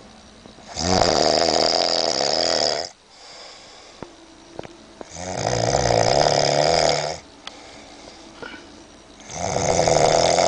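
Heavy snoring: three long, loud snores about four seconds apart, each lasting about two seconds, with quieter breathing between them.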